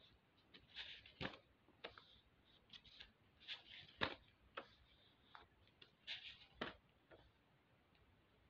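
Faint, irregular clicks and brief rustles of paper banknotes being handled and turned over, about fifteen scattered taps with the sharpest one about four seconds in.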